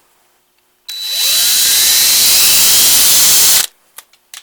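Electric drill spinning up and running for nearly three seconds, drilling out the carburetor's choke rod hole in the choke arm with a 9/64-inch bit, its pitch rising as it gets up to speed and then cutting off suddenly.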